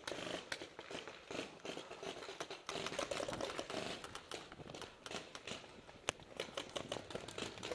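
Rapid, irregular popping of paintball markers firing, with paintballs breaking against a bunker close by.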